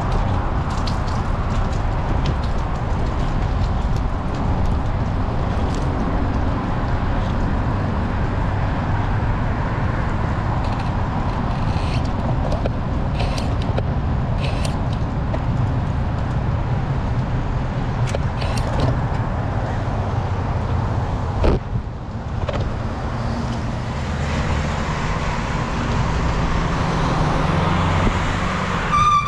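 Steady wind rush on a GoPro microphone while riding a road bike, mixed with road and traffic noise, and a single thump about two-thirds of the way through.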